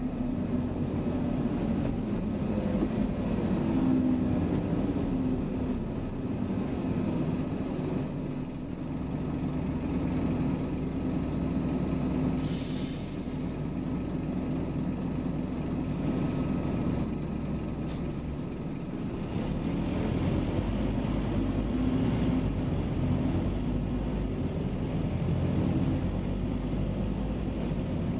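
Scania Omnicity bus's diesel engine running, its pitch rising and falling as the bus pulls away and slows. About twelve seconds in, the air brakes let out one short hiss.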